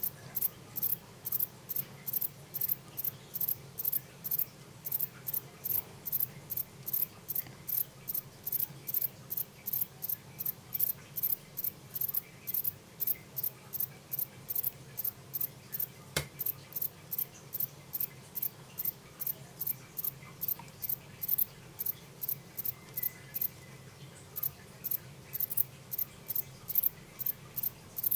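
Male Himegisu katydid (Eobiana engelhardti subtilis, short-winged form) stridulating: a long, even train of short, high-pitched chirps, about two to three a second, with a brief break now and then. A single sharp click about sixteen seconds in.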